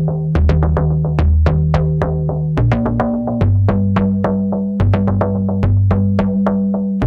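Instrumental electronic music at the opening of a track: a steady drum-machine beat of sharp ticks, about four a second, over synth bass notes that step to a new pitch about two and a half seconds in.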